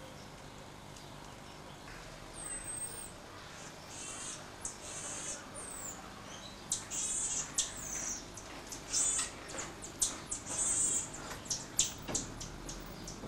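High-pitched animal chirps: a run of short calls, some gliding downward, growing busier from about four seconds in, with a few sharp clicks among them near the end.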